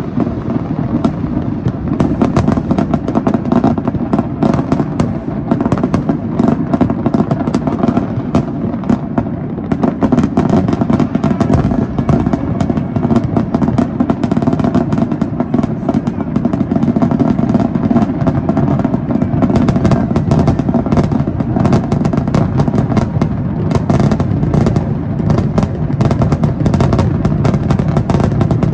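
A fireworks display: a dense, unbroken barrage of bangs and crackling, the bursts overlapping into a continuous low rumble.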